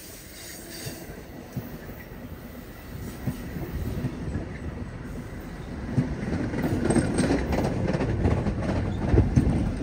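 Amtrak passenger train cars rolling past close by, the wheels rumbling and clacking over the rail joints. The sound grows louder about halfway through.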